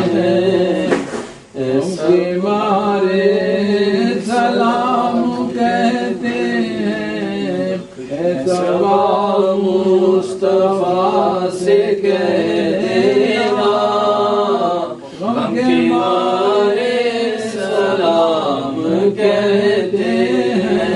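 Unaccompanied naat, an Urdu devotional song in praise of the Prophet, sung by men in long, drawn-out wavering phrases with short breaks between them.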